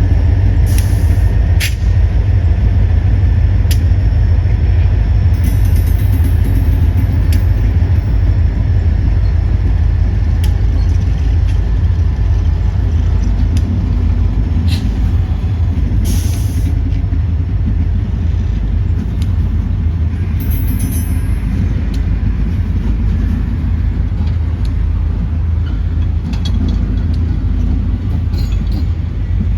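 A train rolling past with a steady heavy rumble, scattered sharp clicks and knocks from the wheels, and a few brief high-pitched noises, the plainest about halfway through.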